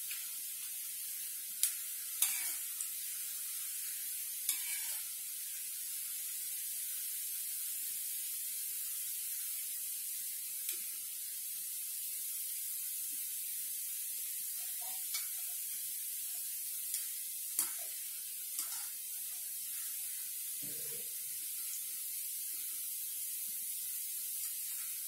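Besan boondi (gram-flour batter drops) deep-frying in hot oil in a kadhai: a steady high sizzle, with a few sharp clicks scattered through and a dull knock near the end.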